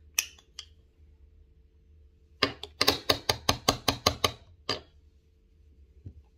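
Light clicks and taps from handling a blush compact and makeup brush. There are two clicks at the start, then a quick even run of about ten taps at roughly five a second, and one more tap after it.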